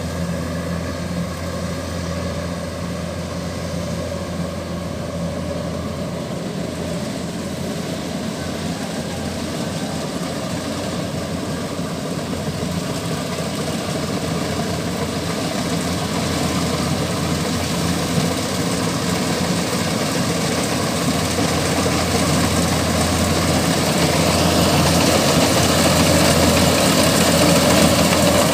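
Rice combine harvester running steadily as it cuts and threshes, a constant low engine hum with machinery noise over it. It grows gradually louder through the second half as the harvester comes closer.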